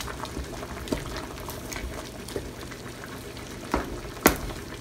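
Broth with pork ribs simmering and bubbling in a wok as a wooden spatula stirs it, with a few sharp knocks of the spatula against the pan, the loudest about four seconds in.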